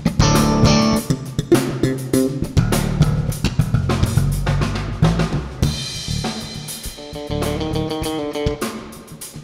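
Jazz band playing live: busy drum-kit playing with snare, bass drum and cymbals over electric bass. About six seconds in the drums thin out and electric guitar notes ring out over them.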